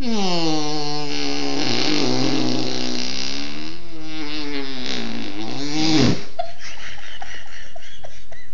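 A long, buzzing fake fart noise made by a person, starting higher and sliding down in pitch, wavering, then ending about six seconds in with a quick downward squeal. A few faint clicks follow.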